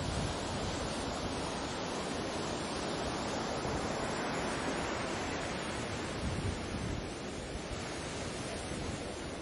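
Sea surf: a continuous rush of waves washing in, swelling a little mid-way and easing slightly near the end, with some wind.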